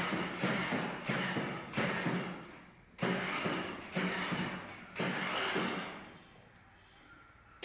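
Battery-powered children's ride-on toy motorcycle sounding in a series of short bursts about a second apart, each starting sharply and fading away. It goes quieter for the last second and a half.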